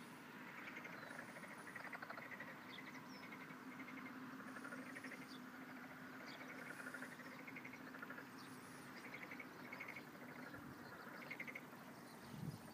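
Frogs calling from flooded rice paddies: a faint chorus of short, rapidly pulsed croaks that repeat and overlap, with a few thin high chirps and a steady low hum underneath for most of it.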